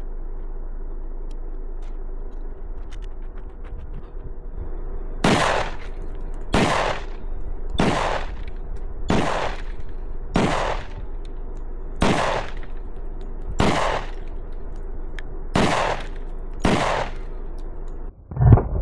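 SIG Sauer P220 Legion 10mm semi-automatic pistol firing nine single shots, starting about five seconds in, roughly one every one to two seconds. A single low thump near the end is the loudest sound.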